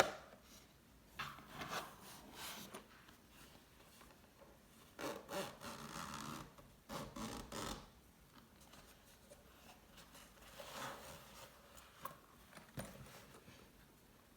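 Packaging being handled: rubbing and scraping in three spells, with a few light clicks between them.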